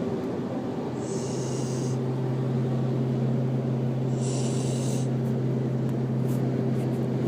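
Husky puppy snoring in its sleep, a hissing breath about every three seconds, over a steady low hum that grows stronger about a second in.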